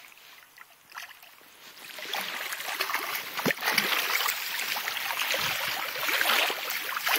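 Water splashing and sloshing as a trout is scooped into a landing net and thrashes in it. It starts about two seconds in and goes on steadily, with many small splashes.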